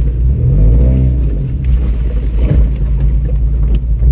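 Off-road truck's engine working at low speed over a rough, rocky trail, its pitch rising and falling with the throttle, with a few knocks and jolts from the body and suspension.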